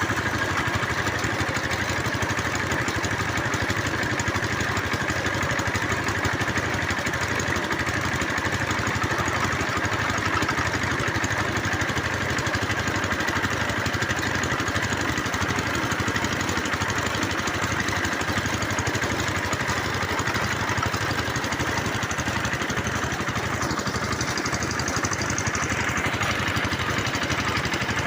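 Engine of a bore-well drilling machine running steadily with an even low pulse.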